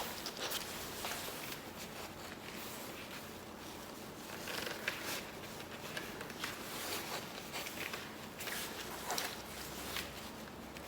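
Fabric rustling and scattered light clicks and scrapes from a bicycle helmet being fitted and adjusted over a head wrap, close to the microphone.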